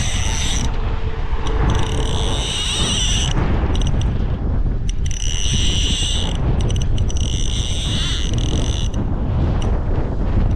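Fishing reel drag buzzing in four bursts of a few seconds each as a hooked fish pulls line off the reel, over wind rumbling on the microphone.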